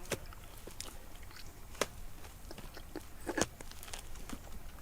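Irregular crunches and clicks of digging through mud and soil, with two louder ones about two seconds and three and a half seconds in.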